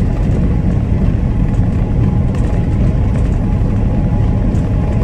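Steady low rumble of road noise inside a moving vehicle's cab, with tyre noise from the road.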